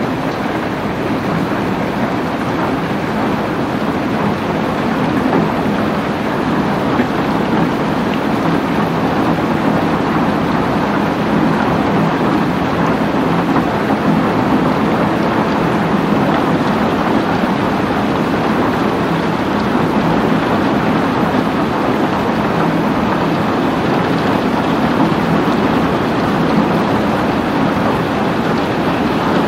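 Heavy rain falling steadily: a dense, even hiss with no breaks or separate claps.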